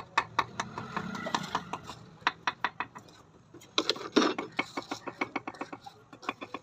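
Rapid runs of sharp taps, about four to five a second, broken by short pauses, with a louder, denser cluster of strikes about four seconds in.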